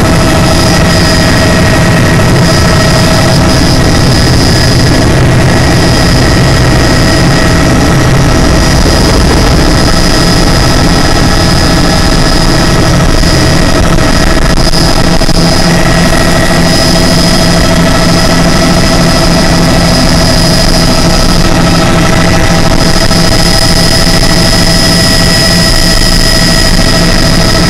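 Bell 206 JetRanger's Allison 250 turboshaft engine and main rotor heard loud from inside the cabin during takeoff and climb. A steady high turbine whine sits over a low rotor drone.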